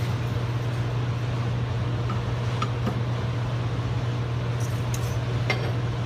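A few faint metallic clinks and taps as a steel cutting disc is handled and set onto a stack of steel toothed drive wheels, over a steady low hum.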